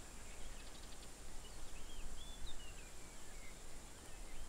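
Small birds chirping in short rising and falling calls, with a quick trill of ticks about half a second in, over a low steady rumble.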